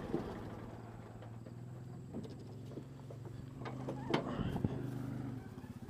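Kubota tractor's diesel engine running steadily, with a few sharp knocks and clanks in the middle; near the end the engine note drops and its firing pulses slow as it settles toward idle.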